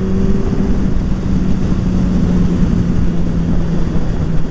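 Motorcycle engine with a Yoshimura exhaust running at a steady high pitch while overtaking at speed. Wind rushes heavily over the microphone.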